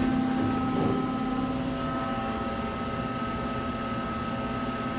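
Steady hum inside an Otis Series II elevator cab, with a constant low tone; a higher steady whine joins about a second and a half in. Brief rustling near the start.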